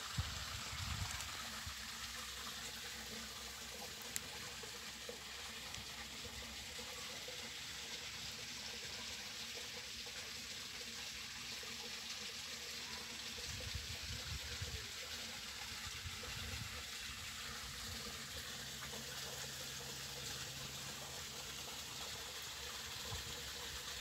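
Irrigation water running along a furrow between crop rows, a steady rushing hiss, with a brief low rumble about a second in and another around the middle.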